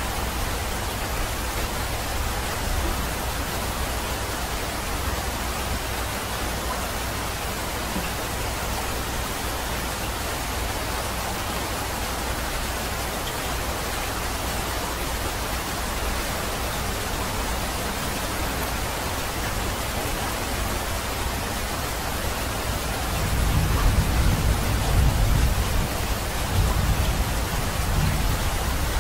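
Steady rain, an even hiss. Near the end a low rumble swells in and comes and goes.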